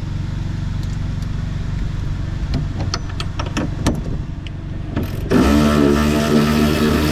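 A steady low mechanical hum with a handful of sharp metallic clicks of hand tools about halfway through; about five seconds in, a louder running-engine sound takes over.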